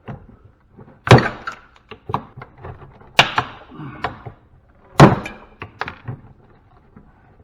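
Sledgehammer striking a metal part of a scrap air-conditioning unit: three heavy blows about two seconds apart, each ringing briefly, with lighter clanks and rattles of loose metal between them.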